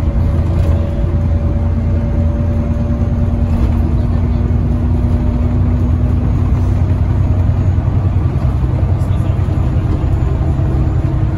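Enviro 400 double-decker bus heard from inside the passenger saloon while driving: a steady, loud drone of engine and road noise. Near the end the engine's steady note shifts to a slightly higher pitch.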